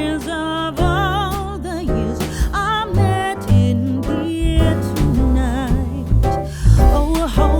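Background song: a voice singing with vibrato over guitar and a steady bass line.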